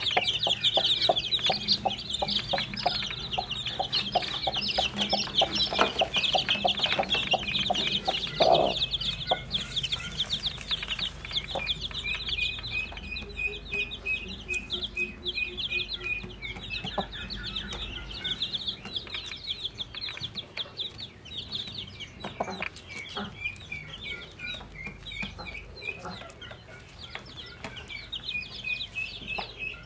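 A brood of newly hatched chicks peeping continuously and rapidly, high-pitched, while the mother hen clucks low and steadily through the first several seconds, with one louder call about eight seconds in.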